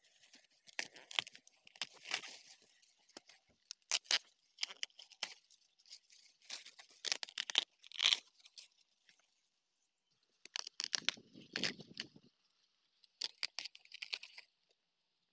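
Crisp, irregular crackling and rustling of maize husks and leaves as baby corn ears are handled and picked off the stalks by hand, with a short pause past the middle.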